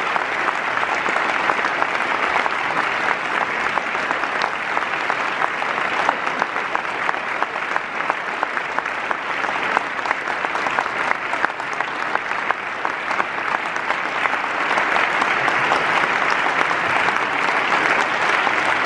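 A large audience applauding: a steady, dense clatter of many hands clapping, swelling slightly in the last few seconds.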